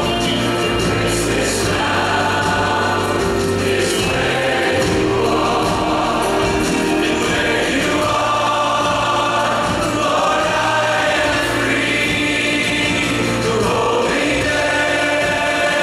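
A large men's choir with soloists singing a slow worship song, accompanied by a band with guitar and keyboards. The choir holds long chords over sustained low notes.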